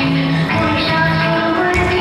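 Music accompanying a stage dance: held melodic notes over a low bass line.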